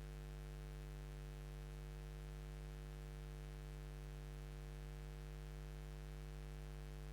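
Steady electrical hum over faint hiss, unchanging throughout; no motor moves or other events stand out.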